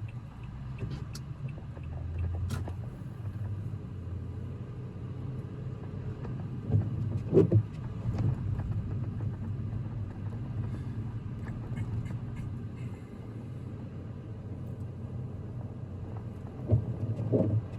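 A car driving on a lightly snow-covered road, heard from inside the cabin: a steady low drone of engine and tyres. A couple of louder low thumps come about seven seconds in and again near the end.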